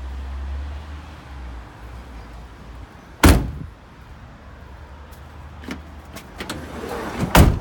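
Doors of a Mercedes Vito van being shut: one heavy slam about three seconds in, a few light clicks, then a second slam near the end.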